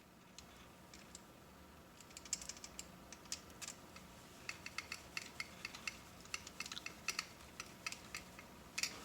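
A magnetic screwdriver working small screws into a pressure switch housing, metal clicking on metal. Light, irregular clicks start about two seconds in and come quicker towards the end.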